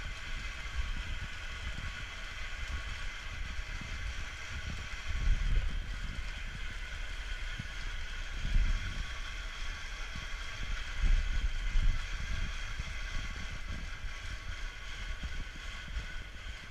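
Pedal-driven WonderMill grain mill grinding buckwheat: a steady whirring grind from the mill and bicycle drive, with a low rumble and a few dull thumps.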